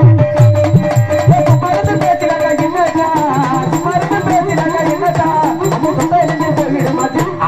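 Live folk dance music from a stage band: drums beat a fast, even rhythm with heavy low thumps under a wavering, bending melody line.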